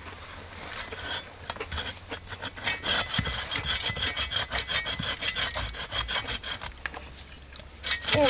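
Hand saw cutting through a log with quick, even back-and-forth strokes, working on the final cut. The strokes ease off briefly near the end.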